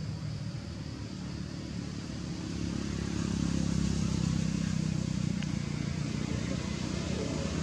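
A motor vehicle's engine running steadily, a low even hum that grows louder about two and a half seconds in and holds.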